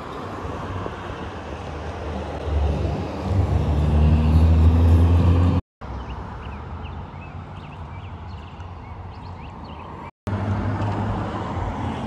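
A road vehicle passing on a nearby road: its low rumble builds and its engine note rises, then it cuts off abruptly. Quieter open-air noise follows, and vehicle rumble comes back louder after a second abrupt cut near the end.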